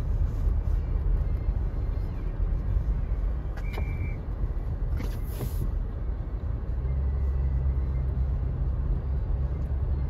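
Steady low rumble of a 2021 Toyota Tacoma's engine and BFGoodrich KO2 all-terrain tires, heard inside the cab while driving in four-wheel drive through about three inches of fresh snow.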